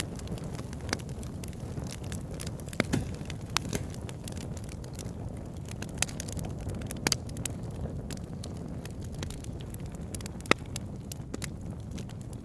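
Wood campfire burning: a steady low rush of flames with scattered sharp crackles and pops from the burning logs, the loudest pops a few seconds apart.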